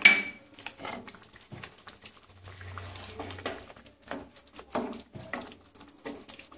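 A sharp metal clink that rings briefly at the start, then a wooden spatula stirring thick egg curry gravy in a metal kadai, with scattered small knocks and scrapes against the pan and soft wet sounds from the gravy.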